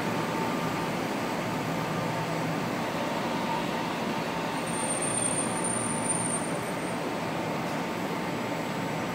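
Toyama Chiho Railway low-floor tram at a station stop: a steady hum and rumble, with a thin high whine for about two seconds in the middle.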